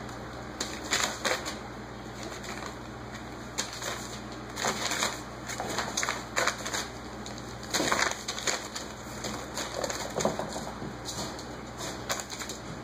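Six-week-old Basenji puppies scuffling and playing on newspaper: irregular bursts of paper crinkling and rustling.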